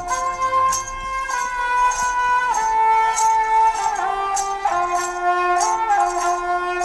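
Traditional Indian music: a melody of long held notes that slide smoothly from one pitch to the next over a steady drone, with a light high tick keeping a regular beat about every two-thirds of a second.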